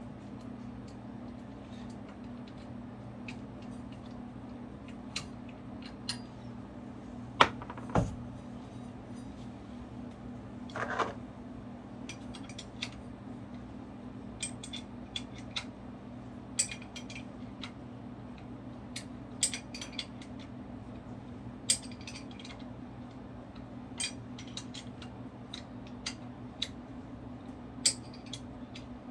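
Metal-on-metal clicks and clinks of a wrench and bolts as the mounting bolts of a marine engine's Sherwood raw water pump are worked out, scattered and irregular. Two louder knocks come close together about a quarter of the way through, over a steady low hum.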